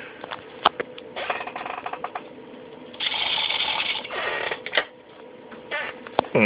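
Small electric motors of a homemade breadboard robot running in irregular spurts, whirring and rattling, with scattered sharp clicks and a faint steady whine underneath. The circuit is misbehaving: the motors are not moving as intended.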